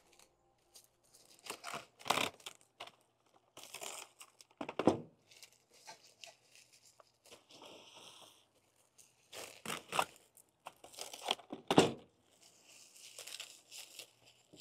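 Clear plastic cling wrap being pulled off its roll, stretched over a stainless steel bowl and pressed down around the rim: irregular crinkling and crackling with a few louder sharp rips.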